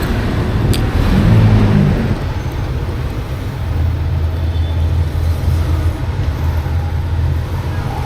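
Road traffic with a steady low vehicle-engine hum, and one sharp click just under a second in.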